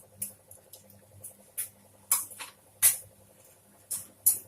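Black peppercorns and cumin seeds crackling in hot sesame oil: sharp, irregular pops as the spices splutter in the tempering, over a faint low hum.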